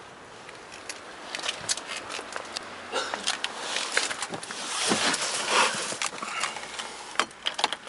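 Rustling and scattered clicks of someone getting into a car's driver's seat and handling the camera, busiest in the middle.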